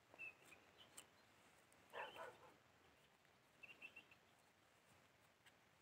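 Near silence with a few faint, short bird chirps, including a quick run of them about four seconds in.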